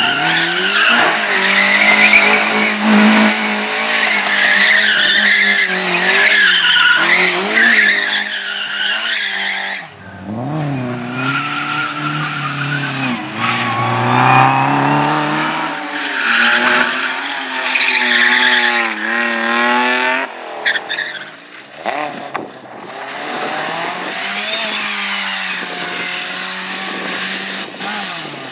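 Rally cars driven hard through a slalom course: engines revving up and down between gear changes, with tyres squealing and skidding through the turns. The sound breaks off and restarts about ten seconds in and again a little past twenty seconds, as separate runs follow one another.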